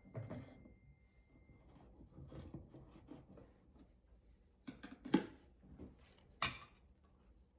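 Spoon and dishes clinking as flour is measured out: light scattered taps and clatter, with two sharper knocks about five and six and a half seconds in.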